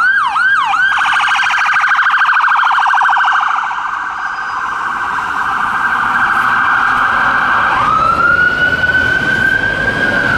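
Mercedes Sprinter ambulance's electronic siren switching tones: a yelp at about three sweeps a second, then a much faster warble from about a second in, and about eight seconds in a slow wail that climbs and begins to fall near the end.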